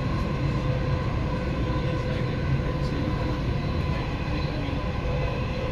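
Dubai Metro train running at speed, heard from inside the carriage: a steady low rumble with a constant hum over it.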